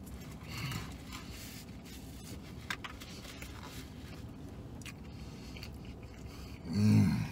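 A man chewing a mouthful of chicken sandwich, with the paper wrapper crinkling and a few small clicks. Near the end comes a short, louder hummed "mm" in his voice.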